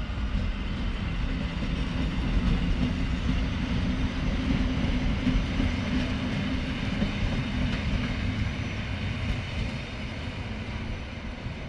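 EN57 electric multiple unit running past on the track: a steady rumble of wheels on rails with a low hum, growing a little fainter about ten seconds in as the train moves away.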